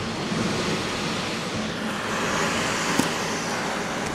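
Steady rushing noise of a hurricane outside, wind and water, with a faint click about three seconds in.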